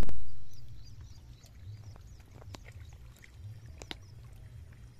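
Wind rumbling on the microphone beside a muddy river, opening with a loud bump that fades within about a second. Scattered small sharp clicks and a few faint high chirps run over the rumble.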